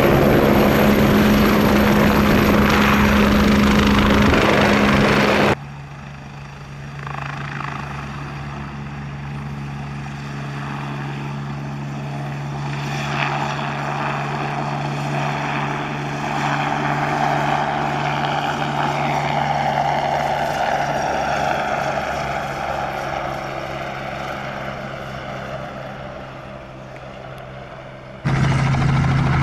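Twin-turbine Agusta A109E Power helicopter: a steady mix of rotor and turbine noise carrying a low hum. The sound drops suddenly about five seconds in, grows louder again, then fades, and near the end it jumps back to full loudness.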